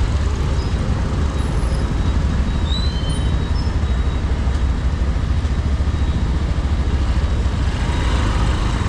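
Small commuter motorcycle engine running at low speed in dense, crawling motorbike traffic: a steady low rumble mixed with the engines of the bikes around it.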